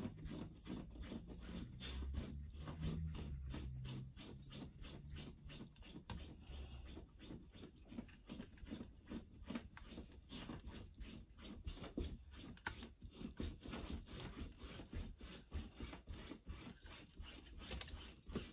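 Faint, irregular rubbing and tapping of hands handling paper on a cutting mat, a few soft strokes a second.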